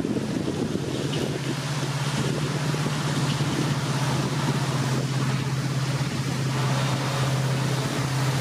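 WDP4D diesel locomotive's EMD two-stroke engine running under power with a steady low drone as it approaches, over a hiss of wind and rain.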